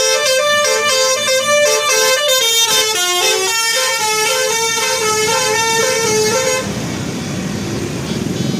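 Bus 'telolet' horn: a multi-tone bus horn playing a quick tune of stepped notes. It stops about six and a half seconds in and gives way to a lower, rougher noise.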